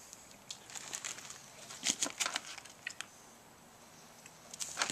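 Faint scattered crackles and clicks, with a small cluster about two seconds in, from a pot of spaghetti on a solid-fuel-tablet camp stove coming to a boil and starting to boil over.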